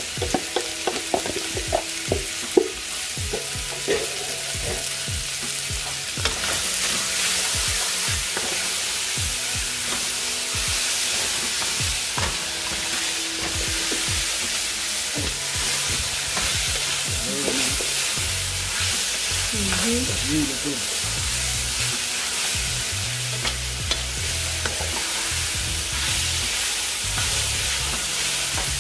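Shredded cabbage and mixed vegetables sizzling in coconut oil in a pan while being stirred with a wooden spoon. The spoon knocks against the pan several times in the first few seconds, then a steady sizzle takes over from about six seconds in.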